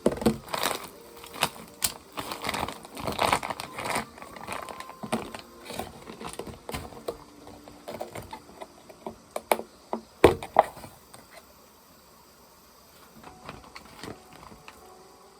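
Irregular clicking and knocking of kitchen utensils and cookware while cooking, busy at first and thinning out over the last few seconds.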